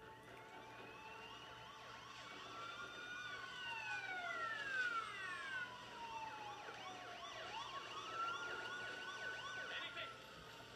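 Emergency-vehicle sirens playing from a television, several wails overlapping and gliding up and down in pitch, loudest around the middle.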